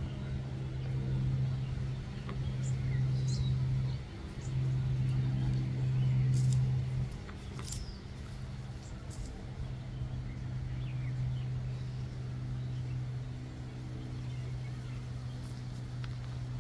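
A steady low motor hum, louder for the first seven seconds, with a few faint, short bird chirps over it.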